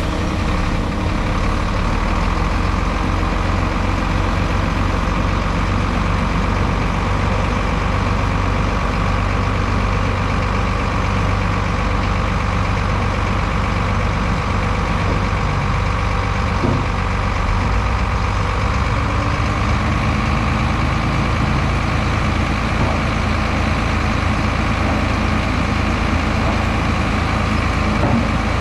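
Heavy diesel engine of earthmoving equipment running steadily, with a slight shift in its note about two-thirds of the way through.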